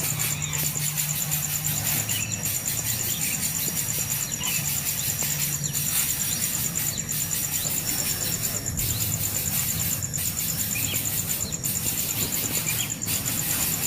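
Steady, high-pitched insect chorus that pulses without a break, with a few faint short chirps over it.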